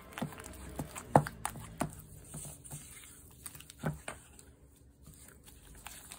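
A spatula stirring a thick egg-yolk mixture in a stainless steel bowl, with irregular clicks and knocks as it hits the metal, the loudest about a second in.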